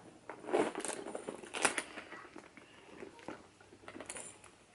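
A quilted leather crossbody bag being handled and turned over: its metal chain strap clinks and the leather rustles, in short bursts with the loudest about half a second and nearly two seconds in and a smaller one near the end.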